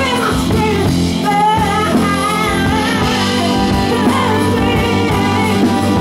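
Live band music: a woman singing into a microphone over guitar and bass accompaniment.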